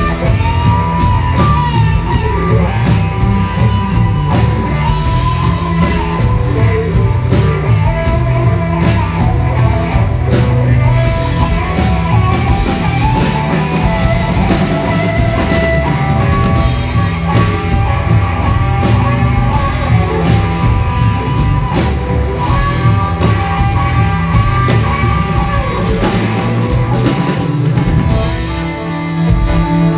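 Live blues-rock band playing: electric bass and guitar over drums, the guitar holding long notes above a steady beat. The music briefly drops in level near the end.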